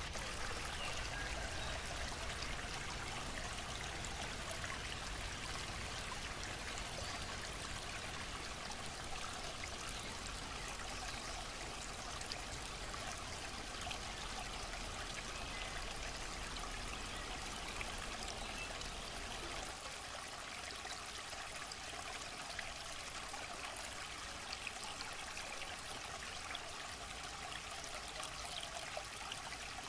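Steady trickle of running water, like a small stream; its low rumble falls away about two-thirds of the way in.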